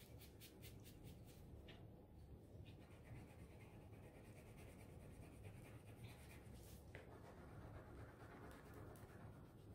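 Faint scratching of a wax crayon rubbed hard back and forth across mixed-media paper.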